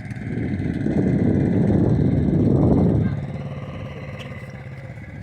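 A motor vehicle's engine swells louder for about three seconds, as if revving or driving past, then drops back to a quieter steady running.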